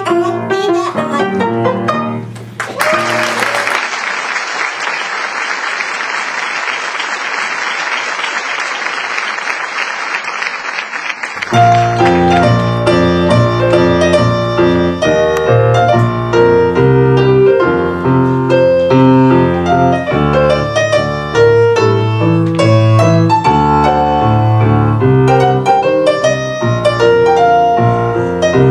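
A song's accompaniment ends and an audience applauds for about nine seconds. Then a piano plays a light tune and keeps playing to the end.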